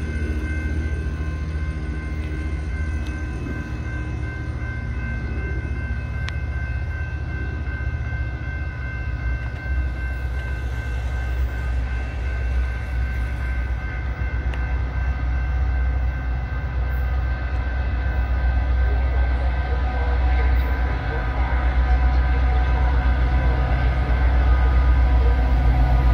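Metra commuter train led by two EMD F40PH diesel locomotives approaching, a low engine rumble growing louder as it nears, with a steady high-pitched whine over it.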